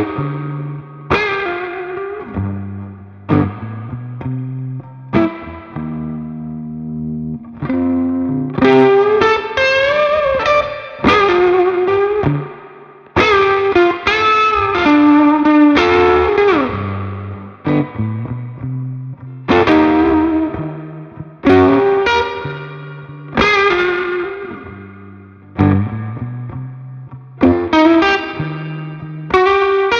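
Ivison Dakota electric guitar played through a Magnatone Twilighter amplifier: picked chords and single-note lines that ring out and decay, with a bent note about halfway through.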